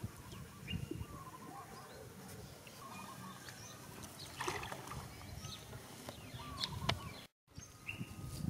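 Outdoor ambience of scattered short bird chirps, with a few soft knocks and rustles as the bamboo pole and rope are handled. The sound drops out for a moment just after seven seconds in.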